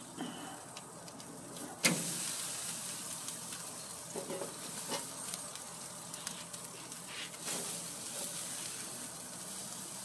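Meat sizzling on a grill in wire grill baskets, a steady hiss, with one sharp clack about two seconds in and a few lighter clicks after it.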